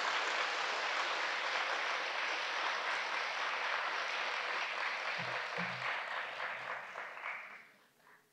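Audience applauding: dense, steady clapping that tapers off and stops near the end.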